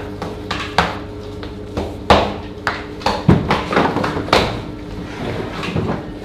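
Bakery work noise: about half a dozen sharp knocks and clatters, likely from wooden proofing boards and floured linen cloths being handled, over a steady machine hum.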